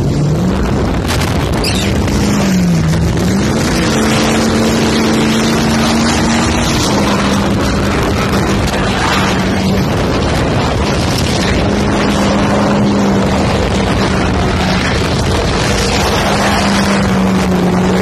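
Ford F-250 pickup's engine revving hard as the truck spins donuts in snow. The engine note dips and climbs in the first few seconds, then holds at a steady high rev. A loud rush of wind on the microphone runs under it.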